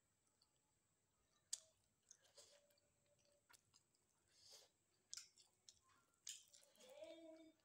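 Faint close-up chewing of a mouthful of rice and dried fish, with sharp wet mouth clicks and smacks at irregular moments. Near the end comes a slightly longer, louder stretch of squishy sound as the food is worked.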